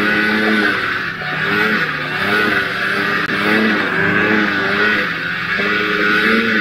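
Snowmobile engine running under throttle, its pitch rising and falling every second or so as the throttle comes on and off, over a steady hiss from the track in the snow.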